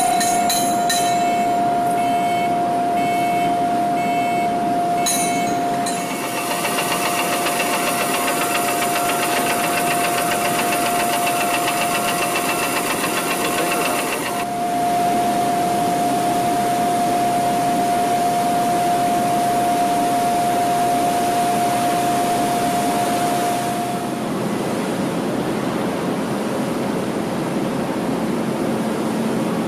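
Steady steel-shot factory machinery noise with a continuous whining tone that stops about three quarters of the way through. Short repeated beeps sound in the first few seconds, and a harsher hiss joins for several seconds in the first half.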